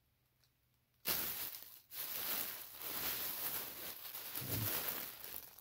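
Clear plastic bag crinkling and rustling as a bagged throw pillow is handled. It starts about a second in and goes on, with a brief break near two seconds.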